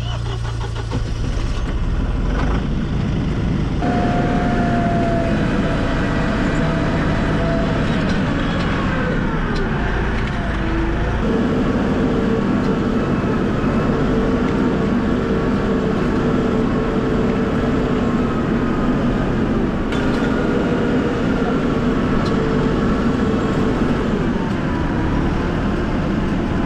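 A motor vehicle's engine runs steadily under a constant noise of tyres and travel. Its pitch holds and then drops a little about eight to ten seconds in, and again near the end.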